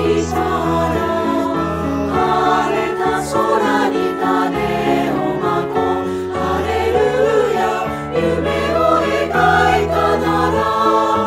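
A Japanese community choir singing a song together.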